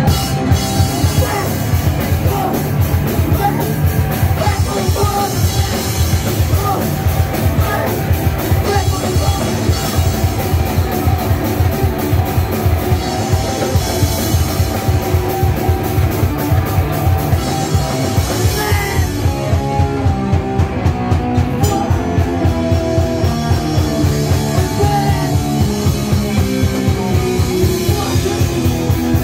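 Live punk rock band playing loud and fast, with rapid, driving drums under dense distorted guitar.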